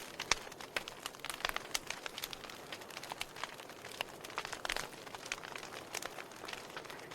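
Wood fire in a fireplace crackling, with irregular sharp pops and snaps over a soft steady hiss.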